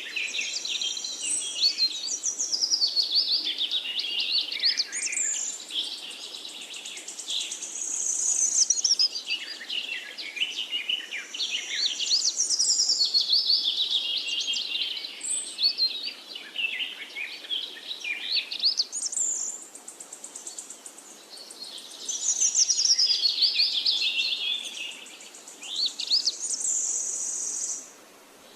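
Several songbirds chirping and singing at once, with quick trills and rising and falling whistled phrases overlapping one another. A high, steady trill comes and goes now and then.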